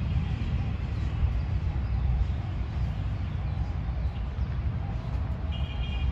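Outdoor ambience: a steady low rumble, with a short high bird call near the end.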